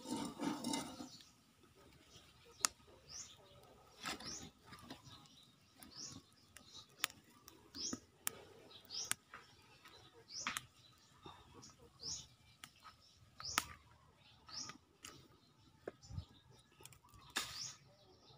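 A small bird chirping over and over, short high chirps about once a second, with occasional sharp clicks and a brief louder noise at the very start.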